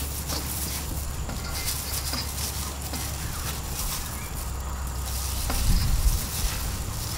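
Soft rustling and light taps of plastic-gloved hands packing fried rice vermicelli into a bamboo tube, over a steady low hum, with a low thump about five and a half seconds in.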